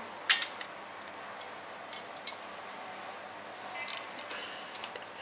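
Knives and forks clinking against metal künefe plates as the dessert is cut: one sharp clink just after the start, a few more around two seconds in and some lighter ones near four seconds.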